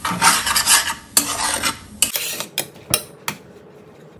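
Metal slotted spatula stirring and scraping millet fried rice around a stainless steel sauté pan: a quick run of scraping strokes, then about five sharp clicks of the spatula against the pan in the second half.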